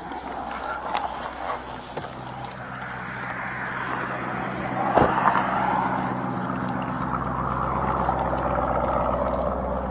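Vehicle and road noise picked up on a police body-worn camera: a steady low engine hum under a rushing noise that swells in the second half, with one sharp thump about halfway through.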